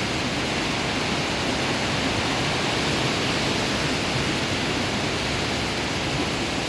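Steady rain mixed with rough surf breaking on the shore: an even, unbroken hiss.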